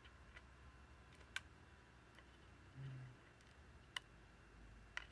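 Three sharp small clicks, about a second and a half in, at four seconds and at five seconds, from the plastic parts of a wireless charging stand and a flathead screwdriver being handled over near silence. A brief low hum sounds just before the midpoint.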